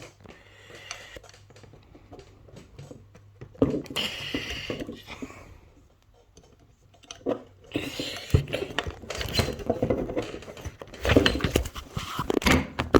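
Handling noise: a metal key clicking, scraping and knocking against an elevator hoistway access key switch as it is worked into the lock, in irregular bouts of clatter.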